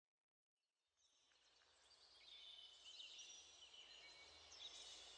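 Near silence: a very faint outdoor ambience fades in about half a second in, with many small high bird chirps over a low hum.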